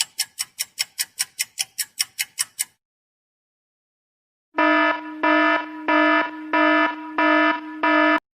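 Alarm-clock sound effect: a rapid, high-pitched ringing of about six beeps a second that stops after under three seconds. After a short pause comes a danger alarm sound effect: a pitched warning tone pulsing on and off about every two-thirds of a second, six times.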